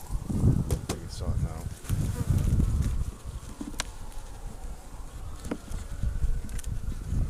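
Honeybees buzzing around an open hive, single bees flying close past the microphone in rising and falling passes. Low rumbling and a few sharp clicks of handling come through underneath.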